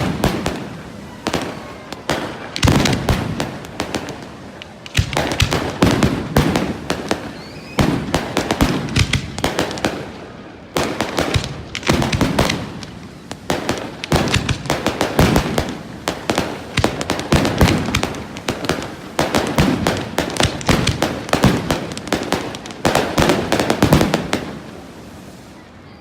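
Fireworks display going off: rapid strings of sharp bangs and crackles, many a second, coming in clusters with short lulls between volleys.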